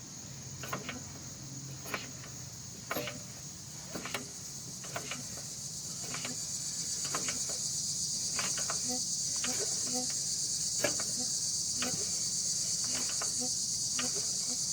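A steady, high-pitched chorus of insects chirring, growing louder about halfway through, with light clicks roughly once a second underneath.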